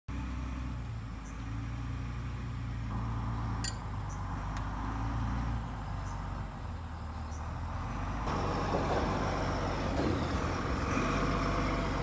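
Diesel engine of a Hyundai crawler excavator idling with a steady low hum. A single sharp tick comes a few seconds in, and about eight seconds in the sound turns louder and rougher.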